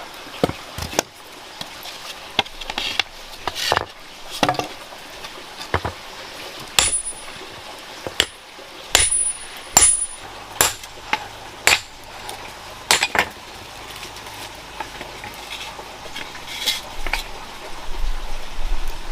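Hand-tool strikes at uneven intervals: sharp knocks, a few with a short, high metallic ring, over a faint steady hiss.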